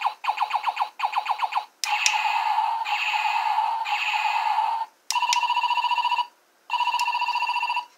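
Electronic sound effects from the Able Star transforming robot toy's sound chip, played through its small speaker as its chest button is pressed. First comes a run of quick chirps, then a warbling tone, then a phone-like ringing tone in two bursts of about a second each near the end.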